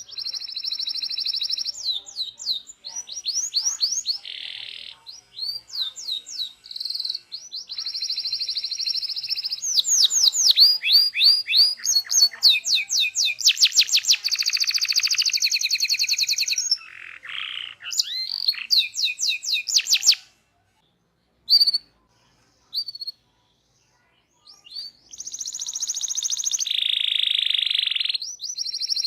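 Local domestic canary singing full rolling song: long trills and rapid runs of repeated high notes. About twenty seconds in the song stops for a few seconds, with only a couple of single notes, then a long trill starts again.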